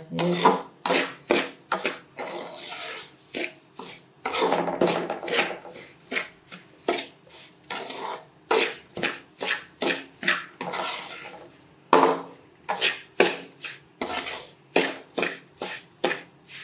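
Metal spoon scraping and stirring semolina around a metal pot as it roasts in ghee, in repeated strokes about two a second, some of them longer drawn-out scrapes.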